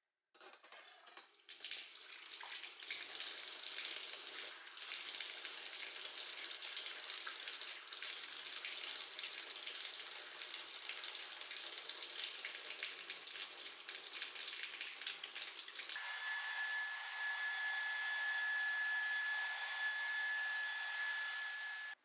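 Water from a handheld shower running in a bathtub as a kitten is washed, a steady hiss of spray. About sixteen seconds in the sound changes and a steady high whistle joins it.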